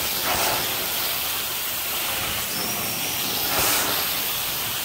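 Carpet cleaning extraction wand working the carpet: a steady rushing hiss, briefly louder about three and a half seconds in.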